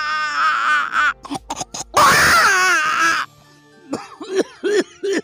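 A man imitating a crying baby with his voice into a microphone: two long, loud wails that fall in pitch, then a string of short sobbing cries near the end.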